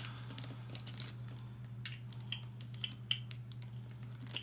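Faint, scattered light clicks and taps of small toys being handled and turned over, over a steady low hum.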